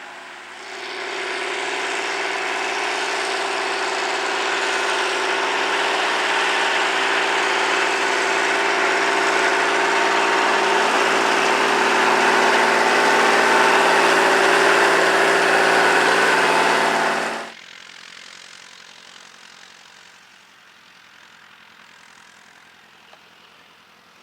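Tractor engine running steadily under load, growing gradually louder, then cutting off abruptly about seventeen seconds in, leaving only a faint engine hum.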